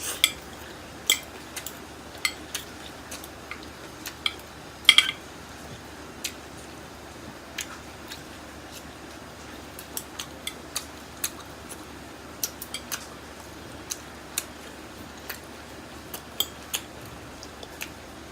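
Close-miked eating of spicy Korean fire noodles: irregular sharp clicks and taps, about one or two a second, with a louder cluster about five seconds in.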